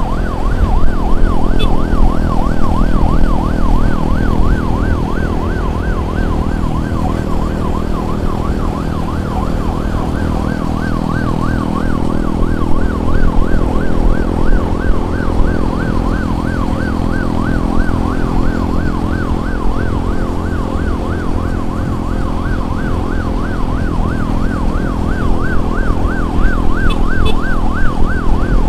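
Emergency siren yelping continuously, sweeping up and down about twice a second, over steady engine and road noise from moving traffic.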